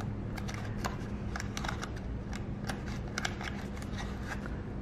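Fingers handling folded paper and clear adhesive tape up close, pressing the tape down onto the paper box: an irregular run of small crackles and clicks, over a low steady hum.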